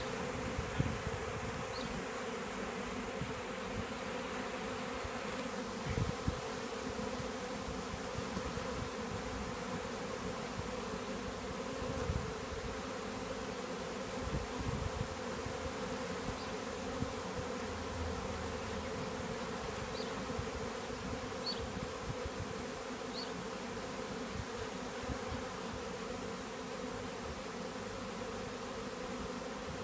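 Steady buzzing hum of a honeybee swarm entering a new hive box, the bees at the entrance fanning their wings to call the rest of the swarm in.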